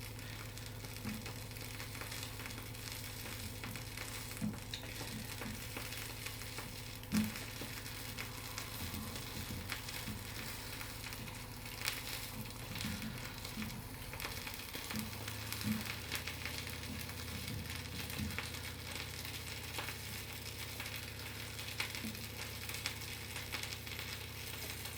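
Butter, flour and milk sauce sizzling and bubbling in a pan on the cooker, with scattered soft knocks of a utensil stirring it, over a steady low hum.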